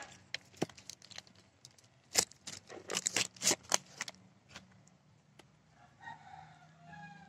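Handling noise at a stingless-bee box hive: a run of sharp clicks and scrapes, densest about two to four seconds in.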